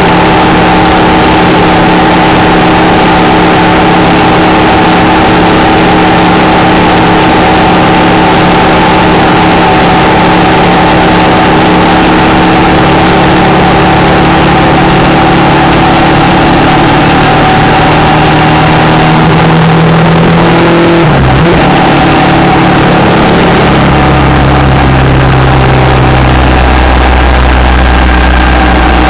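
Suzuki V-Strom's V-twin engine running steadily at cruising speed, under a loud rush of wind and road noise on a bike-mounted camera. The engine pitch dips and shifts briefly about 21 seconds in, and a few seconds later a deeper low hum sets in.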